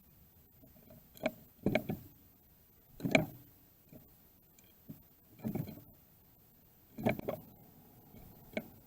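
Irregular knocks and scuffles, about seven in nine seconds, from birds landing on and pecking at seed in a feeder bowl.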